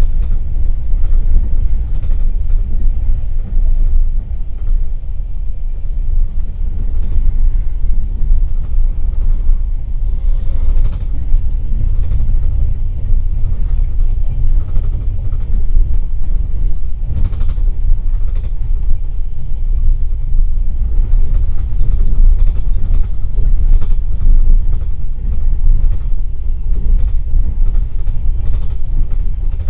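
Passenger train running at speed, heard from inside a platzkart carriage by the window: a loud, steady low rumble of wheels on the track, with brief hissing bursts about ten and seventeen seconds in.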